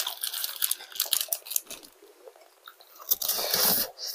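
Close-miked mouth sounds of a person eating: chewing and biting, with quick wet clicks and crunches, and a louder noisy stretch about three seconds in that lasts most of a second.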